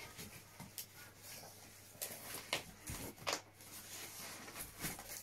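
Scattered light knocks, clicks and rustles of a computer monitor and its packing being handled and turned around.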